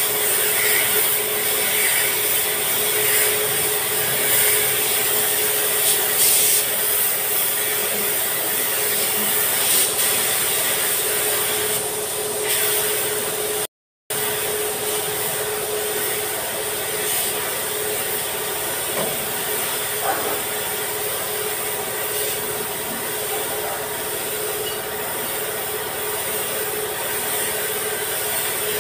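Compressed-air paint spray gun hissing steadily as it sprays epoxy primer, with a steady tone running underneath. The sound cuts out for a split second about halfway through.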